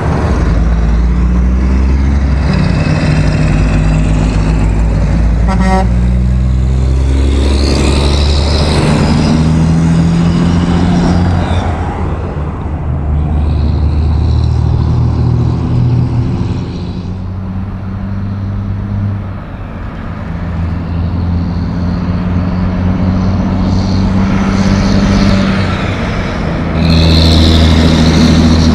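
Heavy diesel truck engine, a Western Star tractor pulling loaded multi-axle trailers, running under load. Its note drops and rises several times, with tyre and traffic noise underneath.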